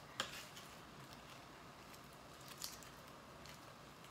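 Quiet room with two soft clicks, one just after the start and a fainter one about two and a half seconds in, over a faint steady hiss.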